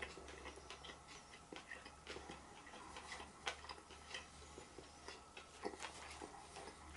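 Faint chewing with irregular small wet clicks, over a low steady hum.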